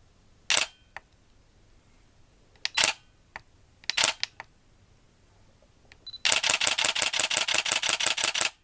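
Canon EOS 800D DSLR shutter and mirror firing: three single shots a second or two apart, each a quick double click. Near the end a short autofocus beep is followed by a rapid continuous-shooting burst of clicks lasting about two seconds.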